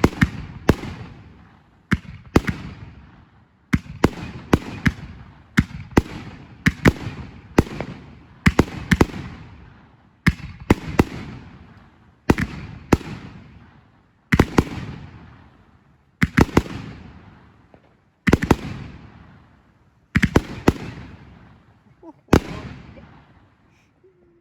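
Fireworks shells bursting overhead: sharp bangs, often two close together, about every two seconds, each trailing off in echo. The firing stops about two seconds before the end.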